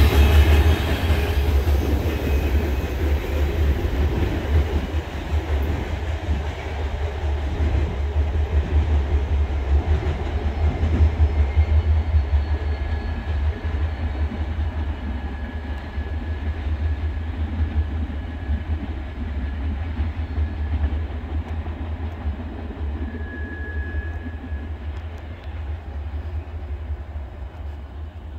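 Tail end of a Norfolk Southern freight train of tank cars rolling past and away, its wheels running on the rails. The sound fades steadily as the train recedes.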